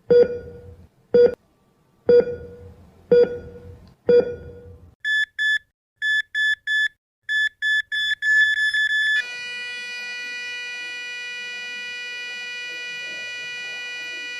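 Heart-monitor style sound effect: five sharp, ringing thuds about a second apart, then short high electronic beeps coming in quicker and quicker runs, then one long steady flatline tone of about five seconds.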